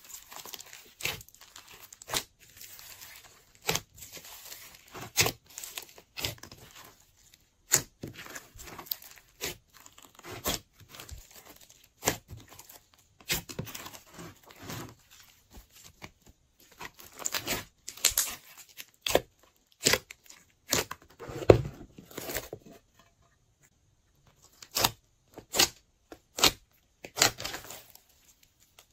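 Hands squishing, folding and stretching glossy slime with foam bead add-ins, giving irregular sticky crackles and sharp pops, with a short pause about three quarters of the way through.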